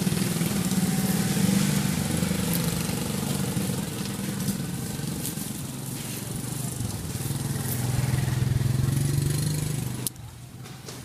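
A small engine running steadily, its pitch shifting, louder again shortly before it drops away about ten seconds in.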